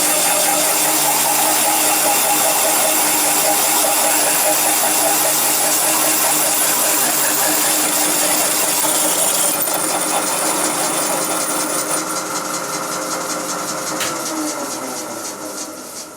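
Carbide-tipped 25 mm hole saw cutting through 3 mm stock at 250 RPM: a steady grinding hiss over the machine's hum. About ten seconds in the cutting noise eases as the saw breaks through, and near the end the machine spins down with falling pitch.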